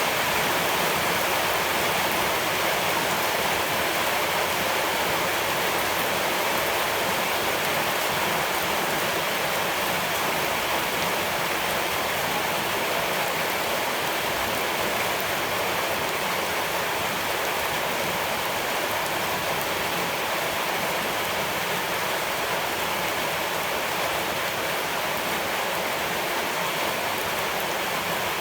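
Steady rushing of running water, unchanging throughout.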